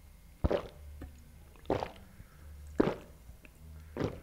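A person gulping down a drink from a glass close to the microphone, with four swallows about a second apart.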